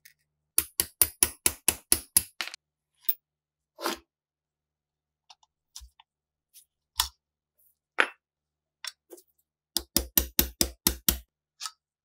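Sharp metal tapping on a rusted steel submachine gun magazine, in two quick runs of about five strokes a second with single taps between: a punch driven into the floor-plate hole to work the rust-seized floor plate free.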